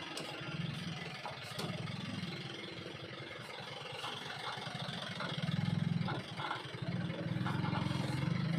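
Vehicle engine idling, a low pulsing rumble that swells and fades and grows louder about halfway through.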